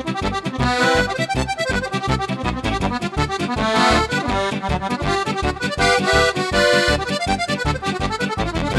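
Steirische Harmonika (diatonic button accordion) playing a folk tune over a steady bass beat, layered with bass and guitar voices from a MIDI sound expander.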